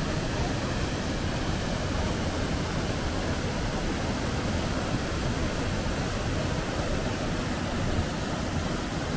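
Mountain river rushing steadily: an even, unbroken noise of fast-flowing water.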